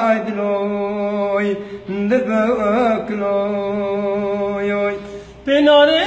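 Male folk minstrel singing long held, wavering notes in a wordless melismatic passage, broken by short breaths about two seconds in and just after five seconds.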